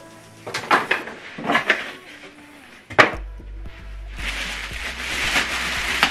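Knocks from the subwoofer being lifted out of its cardboard box, a single thump about three seconds in as it is set down on the table, then the crinkling of the thin plastic bag wrapped around it as it is pulled open.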